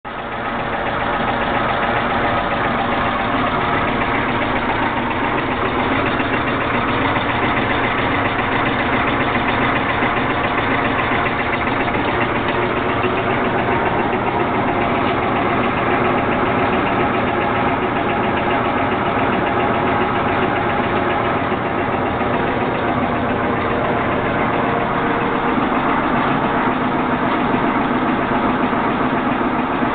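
CPM Snappy Shaker, a feed-mill screening shaker, running on its test run: its steel screen deck shakes on its support arms with a steady, loud mechanical rattle and hum.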